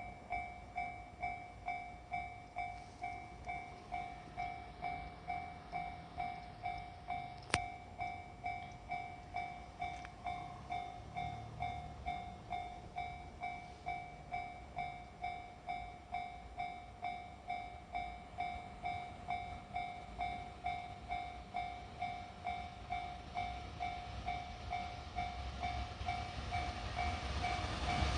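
Japanese railway level crossing's electronic warning bell ringing steadily, a little under two strokes a second. Over the last couple of seconds the rumble of the approaching freight train rises beneath it, with one sharp click about seven seconds in.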